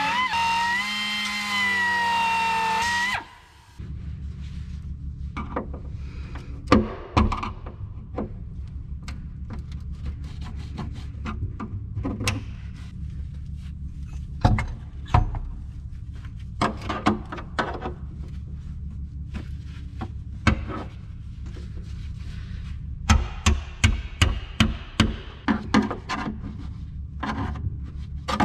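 A small air grinder whines as it grinds through spot welds in the car's sheet-steel rear floor pan, its pitch wavering as it bites, then cuts off about three seconds in. After that comes a run of sharp metallic hammer knocks on the floor pan over a steady low hum, coming thick and fast near the end.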